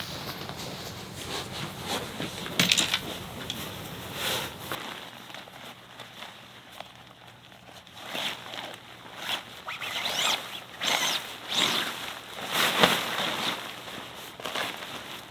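Irregular rustling and scraping of things being handled, in short strokes of varying loudness, quieter for a few seconds in the middle and busier near the end.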